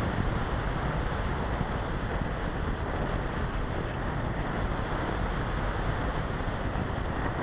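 Steady rush of wind and airflow buffeting the microphone of the small 808 #16 keychain camera mounted on an RC Easy Glider in flight, an even noise with no motor tone in it.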